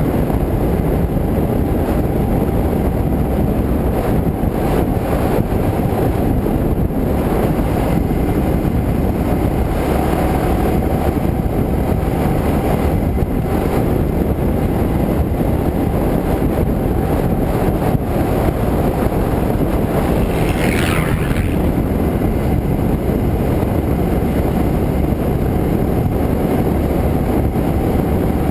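Motorcycle riding along a road, its engine running steadily under heavy wind rush on the helmet- or bike-mounted action camera's microphone. About two-thirds of the way through, a brief high sound rises and falls in pitch.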